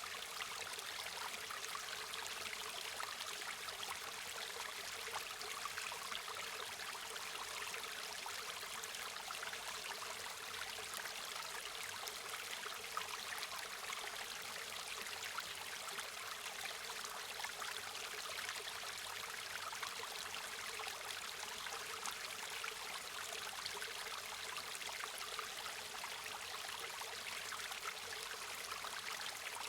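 River water flowing steadily over stones, an even, unbroken rush and babble.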